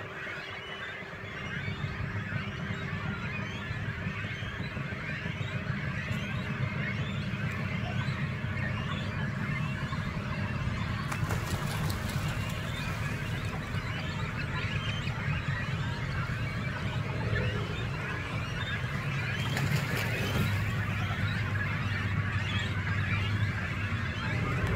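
Many waterbirds at a mixed cormorant, darter, stork and heron breeding colony calling at once, a dense unbroken chatter, over a low steady rumble. Two brief hissing rushes of noise come through, about eleven seconds in and about twenty seconds in.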